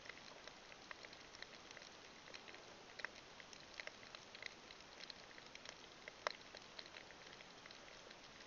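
Underwater crackling of a coral reef: a faint hiss scattered with irregular sharp clicks and pops, several a second, one louder click about six seconds in.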